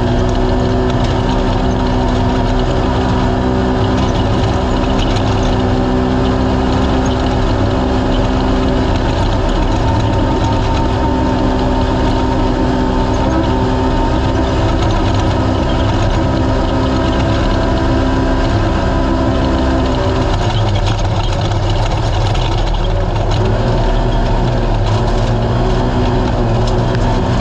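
Naturally aspirated race UTV engine running loud at a steady speed. About twenty seconds in, the steady note breaks up for a couple of seconds, then settles again.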